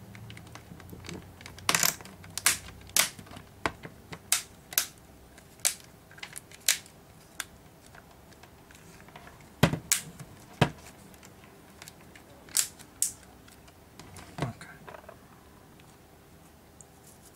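Plastic back cover of a Samsung GT-P5200 (Galaxy Tab 3 10.1) tablet being pressed shut, its clips snapping into place as a string of sharp clicks, with two louder knocks about ten seconds in.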